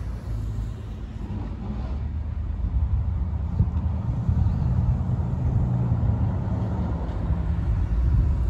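Cars driving past on the road. A classic car's low engine and exhaust rumble builds from a few seconds in and stays strong as the car passes.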